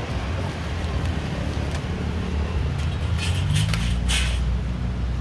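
Road traffic noise: motor vehicle engines running close by. One engine rises a little in pitch about three and a half seconds in, with short bursts of hiss at the same time.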